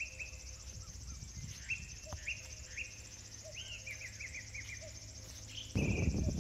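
Birds calling in quick runs of short, downward-sliding chirps over a steady high buzz of insects. Near the end a sudden loud low rumble sets in.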